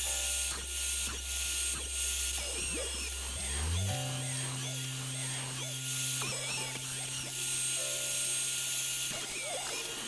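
Background music with a steady beat, its bass stepping up in pitch about three and a half seconds in, over a CNC router's spindle cutting into an oak board.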